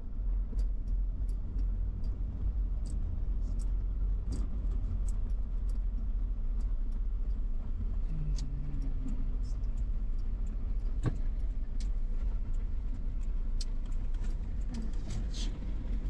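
Steady low rumble of road and engine noise inside a moving car's cabin, with scattered light clicks and rattles throughout.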